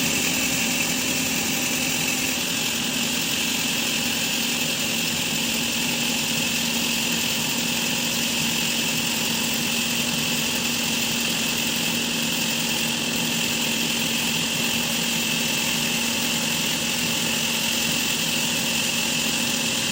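A machine running steadily, a constant hum with a high whine over it, without change in speed or load.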